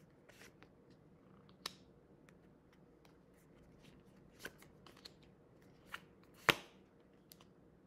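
A tarot deck being shuffled by hand: soft, scattered flicks and taps of the cards, with a sharper snap about six and a half seconds in.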